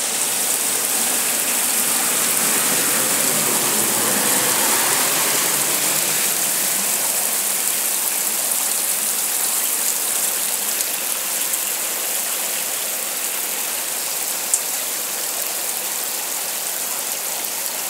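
Heavy downpour: a dense, steady hiss of rain pelting wet ground, with one brief click about three-quarters of the way through.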